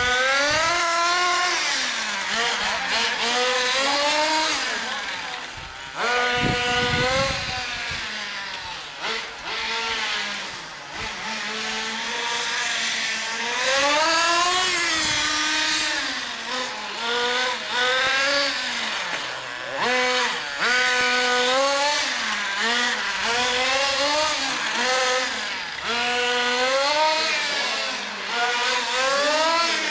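Small two-stroke nitro glow engine of an HPI MT2 radio-controlled monster truck. Its high-pitched whine rises and falls again and again as the throttle is opened and closed around the track.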